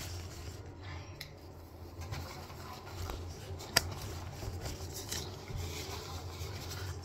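Eating noises at a table: faint rubbing and small clicks of fingers and utensils on plates as chicken feet are picked apart, with one sharp click about four seconds in, over a low steady hum.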